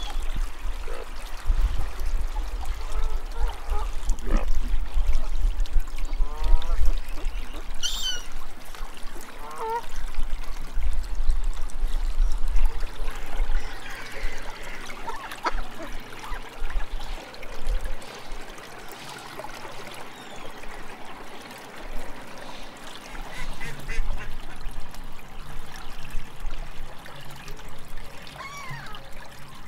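Lakeside waterfowl calling: ducks quacking and gulls calling in scattered short calls, over a low, uneven rumble.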